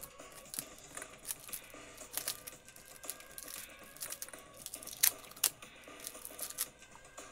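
Faint scattered clicks and rustles of hands handling a roll of clear packing tape and plastic bottles, with two sharper clicks about five seconds in.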